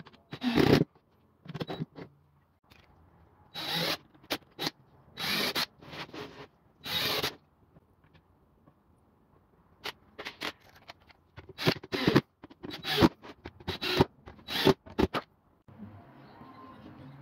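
Cordless drill driving wood screws into plywood in short bursts, about a dozen of them with pauses between. Near the end it gives way to a faint steady hum.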